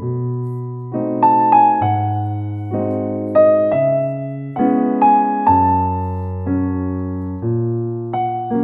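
Background piano music: slow, gentle chords and melody notes, each fading after it is struck.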